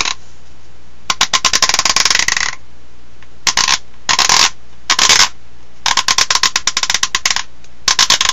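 Rapid clicking rattle in six bursts with short pauses between them. The bursts vary in length: the first and fifth run over a second, the others are about a third of a second.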